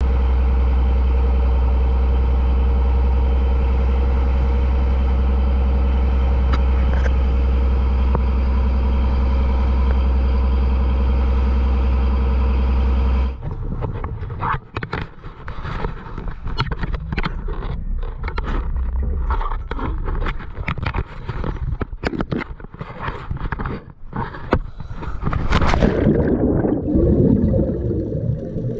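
A boat engine running at a steady, unchanging drone; about thirteen seconds in it cuts off abruptly, giving way to scattered clicks and knocks, and near the end a loud rush of bubbling water.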